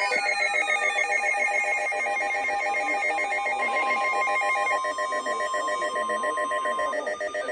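Emergency alert warning tones: a rapidly pulsing electronic tone that rings like a telephone, joined about two and a half seconds in by a steady single tone that stops about seven seconds in.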